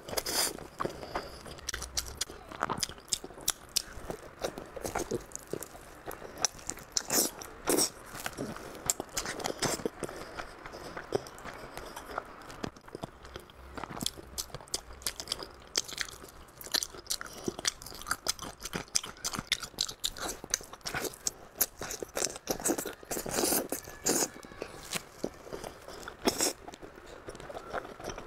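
Close-miked biting and chewing of glazed pork, with many sharp, irregular crunches and wet mouth sounds.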